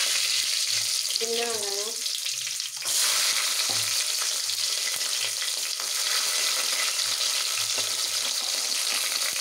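Hot oil sizzling steadily in a pressure cooker as a spice tempering of mustard seeds, cumin, fenugreek, dried red chillies, garlic and curry leaves fries. The sizzle jumps louder about three seconds in as chopped small onions go into the oil.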